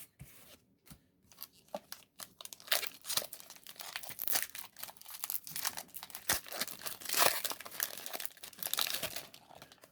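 Foil Pokémon booster pack wrapper being crinkled and torn open: a dense, irregular run of crackles, sparse at first and busiest over the middle and later part.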